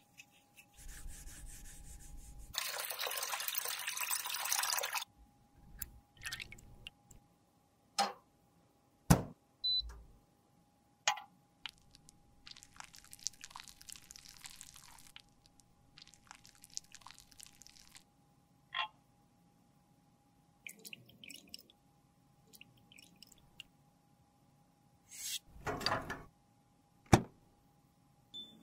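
Close-up handling sounds of lipstick repair: a cotton swab rubbing and scrubbing inside an empty plastic lipstick tube, then several sharp clicks and taps, and soft liquid sounds around melted lipstick in a small glass beaker. A faint steady hum runs underneath.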